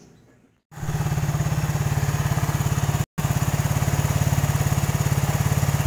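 Suzuki Satria FU 150's single-cylinder four-stroke engine running steadily with an even pulse, just after its valve shim clearances were set and camshafts retimed. It comes in abruptly after a moment of near silence and cuts out briefly about three seconds in.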